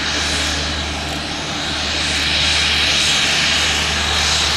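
Beechcraft AT-6's turboprop engine running at taxi power: a steady hiss and whine over a low drone. It grows louder about two seconds in as the aircraft taxis close by.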